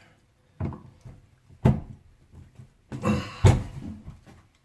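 Faucet valve being pulled out and handled: four sharp knocks and clunks, the loudest near the end.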